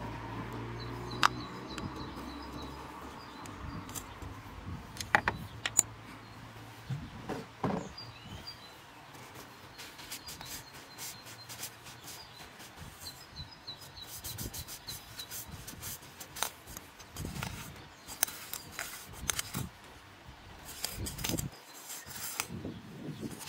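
Hands handling and wiping an oil filter housing cap during an oil change: scattered sharp clicks and taps with rubbing of glove and rag, the loudest clicks about a second in and around five seconds in. Birds chirp faintly in the background.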